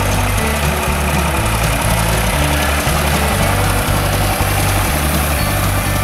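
Background music with a low bass line stepping from note to note about every half second.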